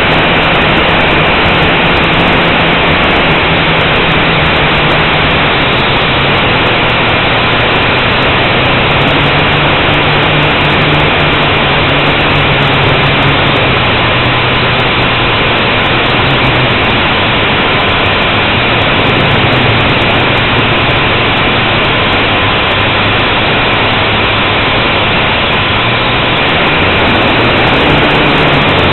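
Blade 180 quadcopter's motors and propellers running in flight, heard close up from the aircraft itself as a loud, steady rushing hiss with a low hum that drifts up and down in pitch as the throttle changes.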